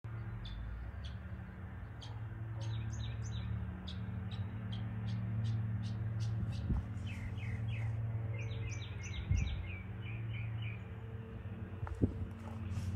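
Small birds chirping, with short high chirps throughout and two runs of quick, falling notes in the middle. A steady low hum runs underneath, with a few soft knocks.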